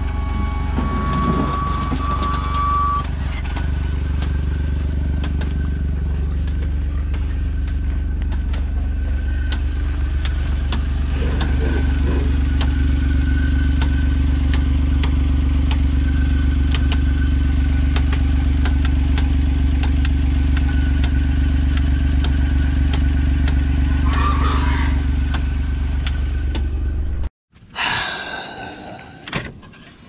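John Deere Gator utility vehicle's engine running steadily with a regular tick, about two a second: a ticking noise the engine has newly developed. The sound cuts off suddenly near the end.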